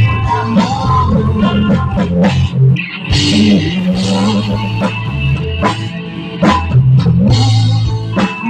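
Live rock band playing an instrumental passage: guitar, bass guitar and drum kit, with no singing.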